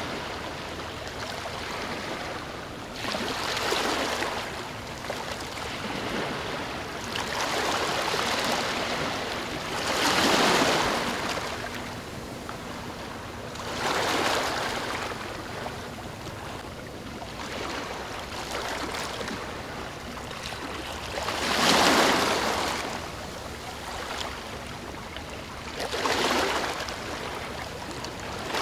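Calm sea waves washing onto a beach: a soft rush of surf that swells and fades every four seconds or so.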